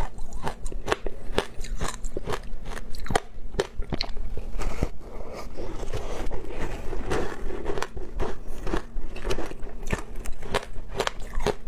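Crunching and chewing of compacted shaved ice coated in passion fruit pulp: a run of sharp, crackly crunches, with a softer, wetter stretch in the middle as the ice is dipped in the pulp.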